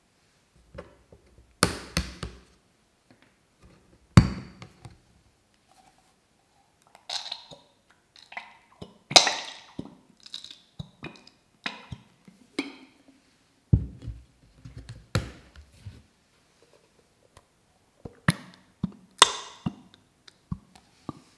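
Plastic squeeze bottles of sauce knocked down onto a counter a few times, with chili sauce and then ketchup squeezed out of them into a glass bowl, sputtering and spattering in irregular spurts.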